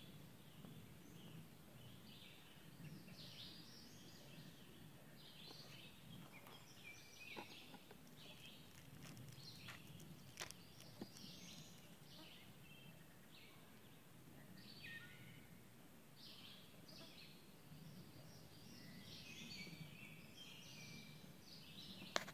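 Faint woodland birdsong: several songbirds repeating short chirping phrases throughout, over a low steady rumble. A few faint clicks sound near the middle.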